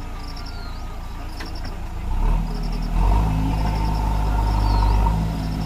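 JCB backhoe loader's diesel engine running, revving up under load about two seconds in and again a second later with a rising whine, then dropping back to a lower run near the end. Short high chirping trills repeat over it.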